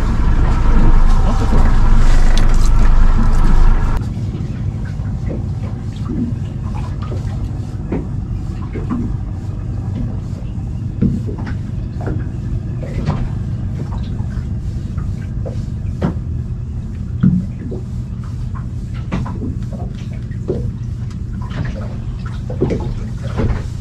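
Engine running steadily. It is loud for the first four seconds or so, then drops abruptly to a quieter steady hum, with scattered light clicks and knocks.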